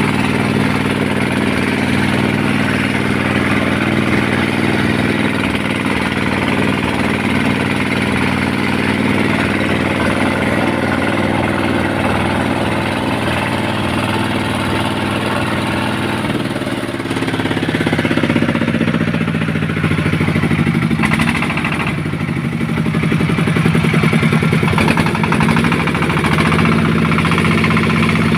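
An engine running steadily, its note shifting about two-thirds of the way through.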